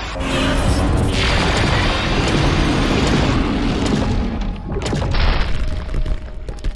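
Cartoon soundtrack of deep booms and crashing impacts over loud background music, with a heavy rumble from the start and another sharp hit about five seconds in.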